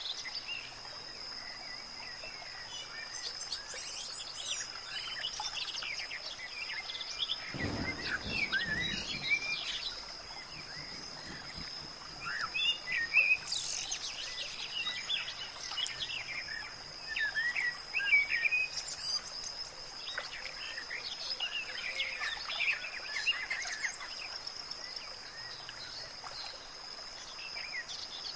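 Outdoor nature ambience: birds chirping and calling in scattered bursts over a steady high-pitched drone, with a brief low rumble about eight seconds in.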